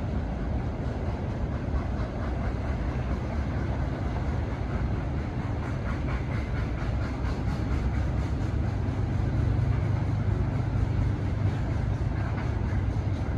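Freight train cars rolling past: a steady low rumble of wheels on rail with faint, regular clicking of wheels over the rail joints.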